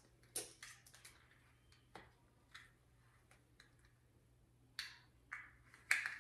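Faint, irregular soft clicks and rustles of a costume being handled and fastened by hand, with a louder cluster near the end.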